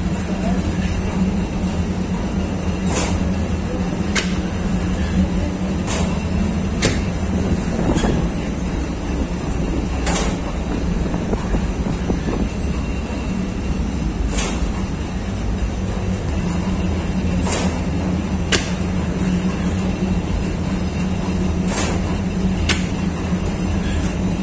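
Lavash bakery machinery running: the rotating-tray oven and dough sheeter give a steady low hum and rumble, with sharp knocks every second or two.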